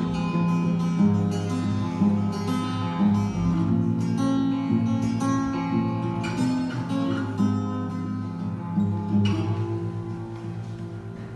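Acoustic guitar music with strummed and plucked chords, fading out near the end.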